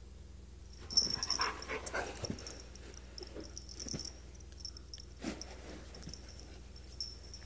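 Siberian husky vocalizing in play while wrestling a cat, in short bouts that start about a second in, the first bout the loudest.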